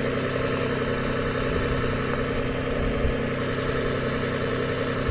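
2007 Lexus ES350's 3.5-litre V6 idling steadily while the headlights and accessories are switched on as electrical load.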